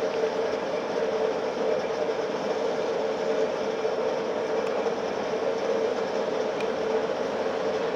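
A steady mechanical drone: a constant hum over a hiss, unchanging throughout.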